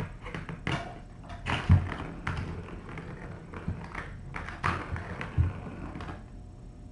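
Kittens batting the balls in plastic ball-track toys: irregular clicks, taps and rattles, with a few dull thumps, the loudest about two seconds in.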